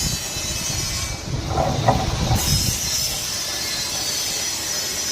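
Electric wire stripping machine running steadily with a wire being fed through it, with a brief higher-pitched squeal about one and a half seconds in.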